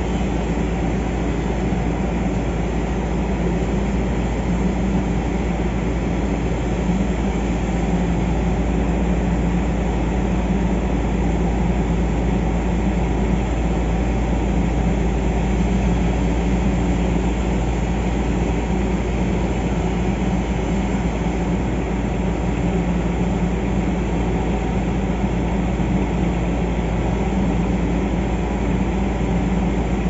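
Steady low drone of offshore drilling rig machinery, running without change.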